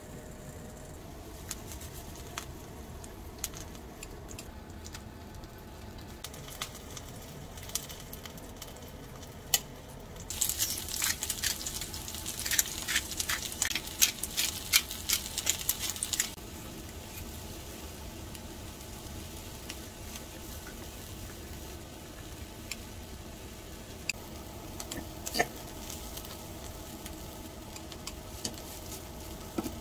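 Kitchen food-prep handling: light clicks and taps, with a dense crackling, clicking stretch of about six seconds around the middle as raw chicken pieces are seasoned with salt and pepper. A few sharp clicks near the end come as chicken is cut with kitchen scissors.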